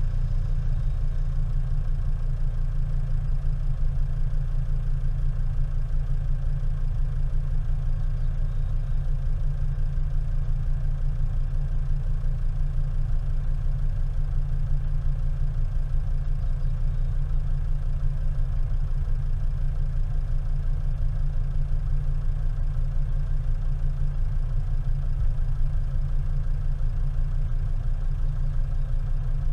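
Car engine idling: a steady low rumble that does not rise or fall.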